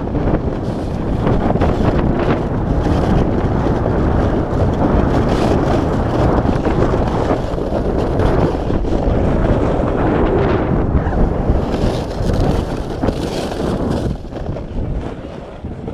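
Wind buffeting the microphone together with the rumble and scrape of a sled sliding fast over packed snow. The noise is steady and dies down near the end as the sled slows.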